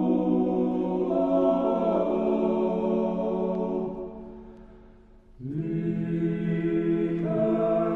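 Unaccompanied choir singing long held chords. The chord fades away about four seconds in, and a new one enters about a second and a half later.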